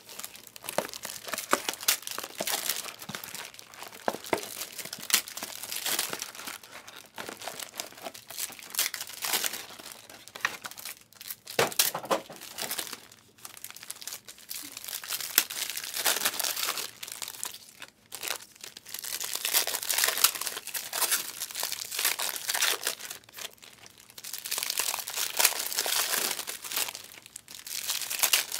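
Panini Select trading-card pack wrappers being torn open and crinkled by hand, in bursts of crackling rustle with sharp ticks and short pauses between.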